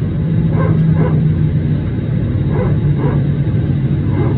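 Airbus A321neo hydraulic power transfer unit (PTU) under the cabin floor barking like a dog: two pairs of short barks about two seconds apart, over a steady low cabin drone. The sound is normal for A320-family aircraft and not a fault.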